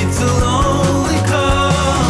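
Background music: a song with a steady drum beat.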